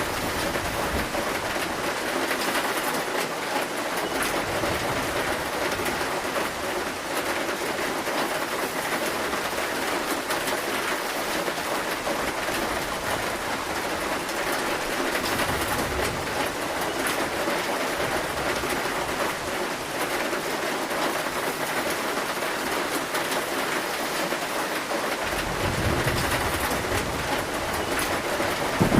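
Heavy rain drumming steadily on a zinc roof, with low thunder rumbling in the last few seconds.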